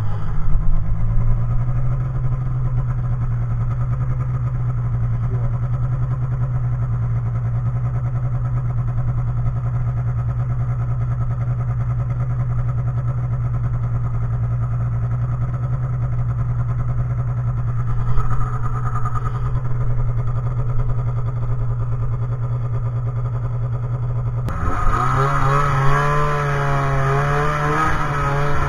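Snowmobile engine running at a steady cruising speed, a low even drone that settles after a brief rise in pitch at the start. About twenty-four seconds in, the sound changes abruptly to a brighter mix with a wavering whine over the same drone.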